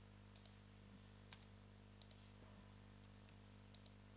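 Faint computer keyboard keystrokes: a few sparse clicks, some in quick pairs, as numbers are typed and entered into a spreadsheet, over a faint steady electrical hum.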